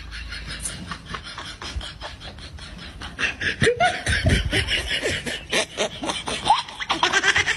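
People laughing in short bursts, getting much louder from about three seconds in.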